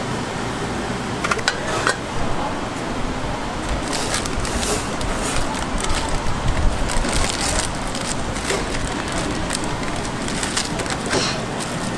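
Plastic instant-noodle packet crinkling and tearing open in clusters of short crackles, starting about four seconds in, over a steady background hiss.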